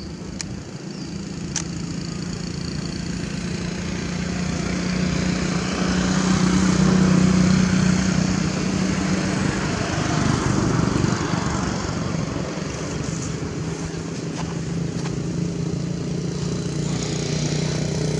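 A small engine running steadily, with a constant hum that grows louder toward the middle, eases off, and rises again near the end.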